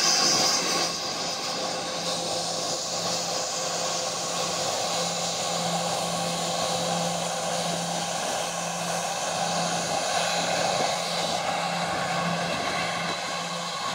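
Bombardier Global Express business jet taxiing on its two Rolls-Royce BR710 turbofans at idle thrust. It makes a steady jet whine of several held tones over a hissing rush, a little quieter after the first second as the jet moves away.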